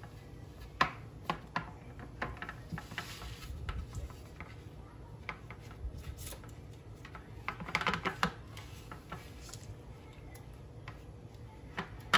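Hands folding and pressing the edges of puff pastry on a parchment-lined metal baking sheet: parchment paper rustling and scattered light taps and clicks against the tray, busiest about eight seconds in.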